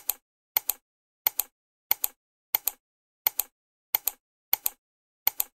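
Edited-in title sound effect: a short double click or pop, repeated nine times at an even pace of about three every two seconds, with dead silence between. Each one goes with a letter of the animated title appearing.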